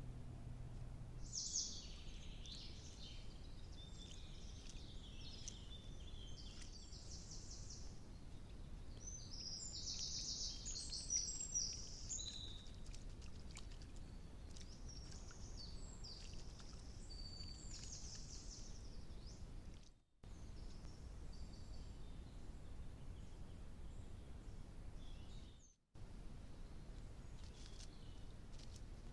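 Small woodland birds calling and singing in high-pitched chirps and trills, busiest in the first twenty seconds and sparser after, over a steady faint background hiss. The sound cuts out briefly twice near the end.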